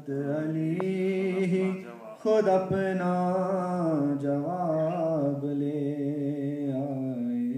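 A man's solo voice singing a manqabat, a devotional chant-like poem, unaccompanied, in long held notes that waver and bend in pitch. There is a short break for breath about two seconds in.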